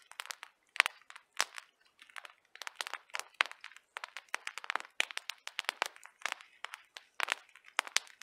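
Spruce boughs rustling and crackling as they are handled and laid over a stick tripod frame, with irregular sharp snaps of needles and twigs.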